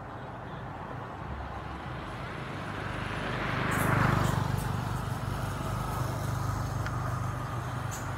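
A motor vehicle passing by off-picture: a steady low engine hum with a swell of engine and road noise that builds to a peak about four seconds in and then fades.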